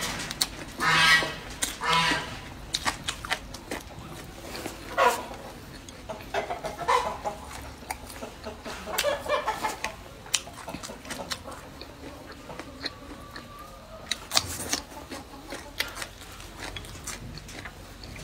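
Close-up eating sounds: chewing and sharp clicks from chopsticks and food, with several short calls like a farmyard fowl's in the background, in the first two seconds and again from about five to ten seconds in.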